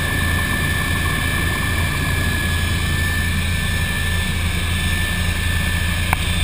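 MBB Bo 105 twin-turbine helicopter in flight heard from inside the cabin: a steady rotor and engine drone with a high whine over it. A brief click near the end.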